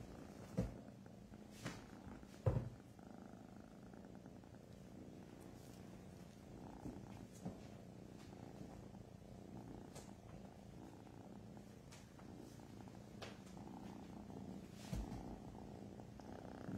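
Kittens purring close to the microphone: a steady, continuous rumbling purr. A couple of brief knocks in the first few seconds.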